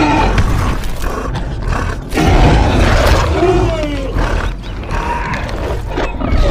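Film sound effects of a Giganotosaurus and another huge theropod dinosaur roaring and snarling as they fight, loud and dense, with a fresh roar breaking in about two seconds in.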